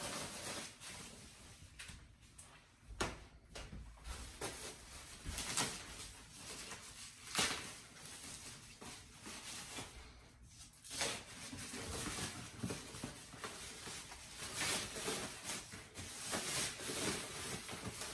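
Rustling of white packing wrap being pulled and unwound from a wooden chair's arm and leg, on and off, with a few short, sharper rustles.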